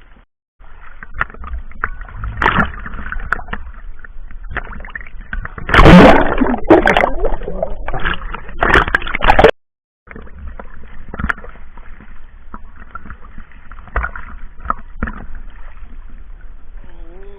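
Seawater sloshing and splashing close to the microphone, with small knocks and gurgles. It is loudest for a few seconds in the middle and breaks off briefly to silence near the middle.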